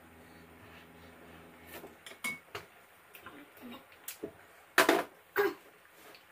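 Dishes and utensils knocking and clinking on a table: a scatter of separate sharp knocks, the two loudest a half second apart near the end.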